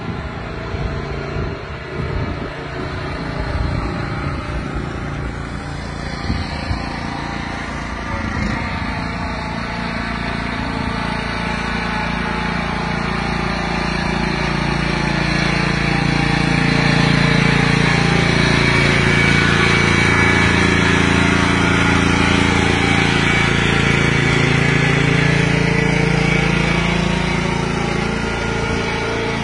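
Riding lawnmower engine running steadily, growing louder as the mower drives closer, loudest around the middle, then easing off slightly as it moves away.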